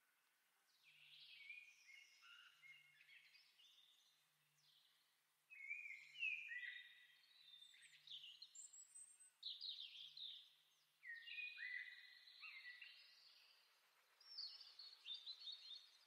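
Faint birdsong: small birds chirping and trilling in short, overlapping phrases, busiest in the second half.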